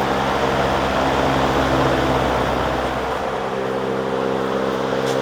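1960 Lasko 20-inch oscillating box fan running at high speed: a steady rush of air over the electric motor's hum, with the hum shifting slightly about three seconds in.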